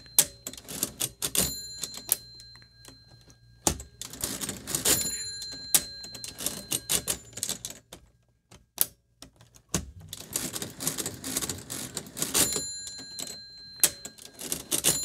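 1920s Monroe hand-cranked mechanical calculator worked through a long division by repeated subtraction: the crank is turned again and again, with clattering gear and ratchet clicks in bursts and pauses between them, some clicks leaving a short metallic ring.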